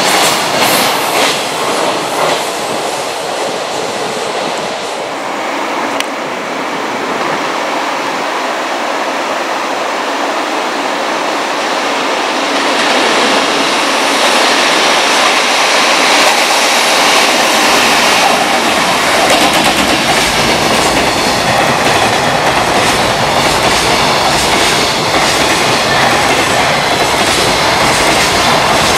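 Freight trains passing on the rails, their wheels clattering over the rail joints. After a change about six seconds in, a second train, an EF210 electric locomotive hauling container wagons, comes up and grows louder, with a deep rumble from about eighteen seconds in as the wagons run close by.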